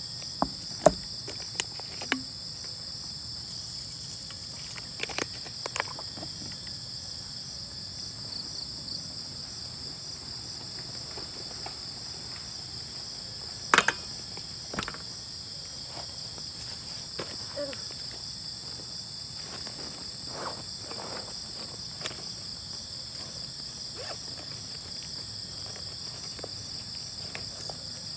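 A steady, high-pitched chorus of night insects, crickets, trilling without a break. Scattered sharp clicks and knocks sound over it, several in the first two seconds and the loudest pair about fourteen seconds in.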